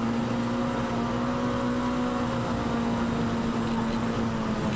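Polaris RZR Pro R side-by-side's 2.0-litre four-cylinder engine running at a steady speed while cruising a dirt road, with tyre and wind noise underneath.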